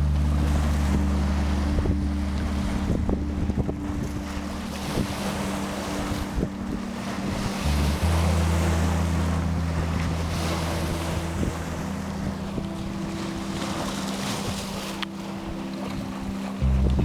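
Sea waves washing in, with wind buffeting the microphone, rising and falling in surges. Under them run low sustained drone tones that change pitch together about eight seconds in and again near the end, like a slow chord change in ambient music.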